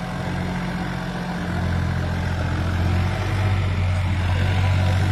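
Preet 955 tractor's diesel engine running under load as it pulls a trailer over dirt mounds, a steady drone that grows louder from about a second and a half in.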